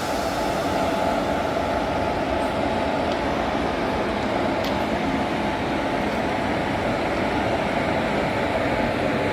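Indian Railways WAG-7 electric freight locomotive giving off a steady whirring noise, with no change in level.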